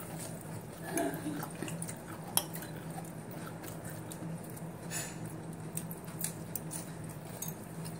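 A metal fork clinking and scraping against a salad bowl while eating, in scattered sharp clicks, the sharpest about two and a half seconds in. A low steady hum runs underneath.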